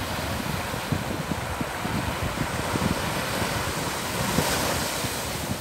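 Small sea waves breaking and washing up a sandy shore, with wind buffeting the microphone. The surf's hiss swells about four seconds in as a wave breaks and runs up the sand.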